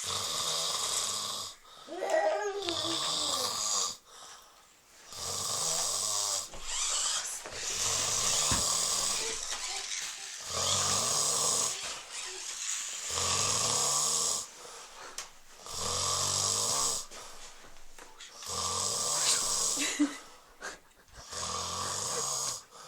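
A heavily drunk man snoring hard in deep sleep: about eight loud, rasping snores, each a second or two long, with short pauses between breaths.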